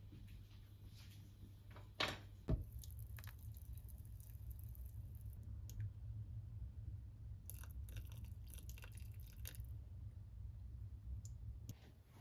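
A glass saucepan lid knocks twice as it is lifted off and set down, then a metal ladle stirs a stew in a nonstick saucepan with faint, scattered scraping and clicking, over a steady low hum.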